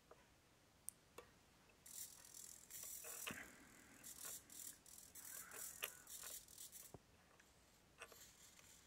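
Faint high-pitched whirring of an RC model tractor's small electric motors in short bursts, with a few light clicks near the start.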